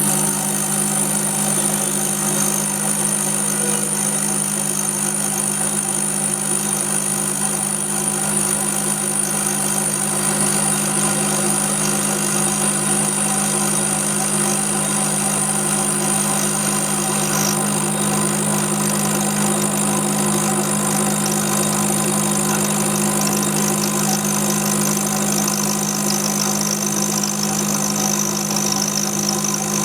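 Single spindle automatic lathe running steadily: a constant machine hum with a high-pitched whine over it.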